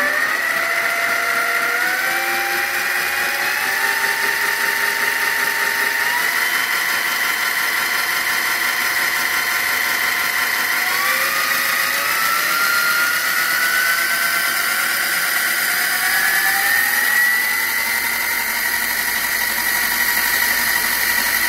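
MX 8x14 mini-lathe running with its metal change-gear train engaged, very noisy, the gear whine rising in pitch in two spells as the spindle speed is turned up from about 500 to about 2800 rpm. A steady high-pitched whine runs underneath, which the owner thinks comes from the motor's PWM three-phase controller.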